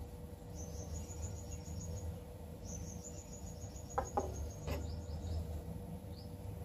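Two trills of rapid high chirps from a small animal, with two light knocks about four seconds in as a brass burner part is set down on a wooden board, over a steady low hum.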